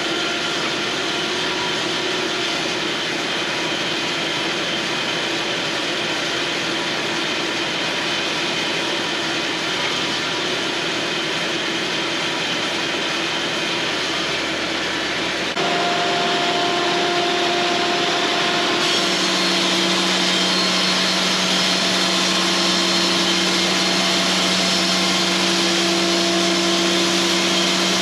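Cooks AC36 band sawmill running and sawing pine, a loud, steady mechanical drone with a whine over it. About halfway through the sound changes abruptly: it gets louder and new steady whining tones appear.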